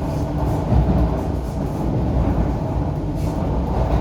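Interior of an MTR Kwun Tong Line Q-Train metro car running between stations: a steady rumble of wheels on track with a low, even hum from the train.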